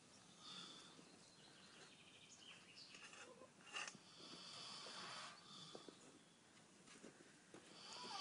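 Pig snoring softly, faint slow breaths swelling and fading every few seconds, with a single sharp click about halfway through.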